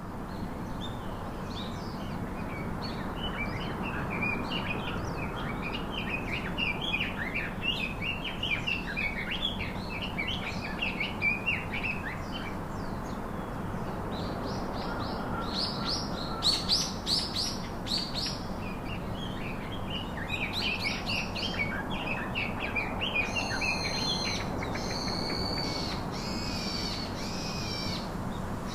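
Several songbirds singing and calling: a busy stream of quick chirps for the first dozen seconds, louder bursts of higher calls in the middle, and a run of repeated, fuller call notes in the last few seconds, over a steady outdoor hiss.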